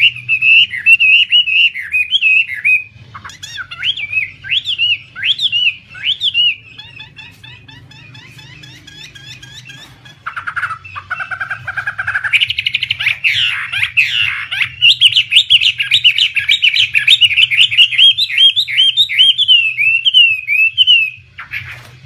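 Chinese hwamei (poksay Hongkong) singing loud, varied whistled phrases that slide up and down. A quieter spell of soft chatter comes about a third of the way in, and from just past the middle a long run of fast repeated notes follows, breaking off shortly before the end.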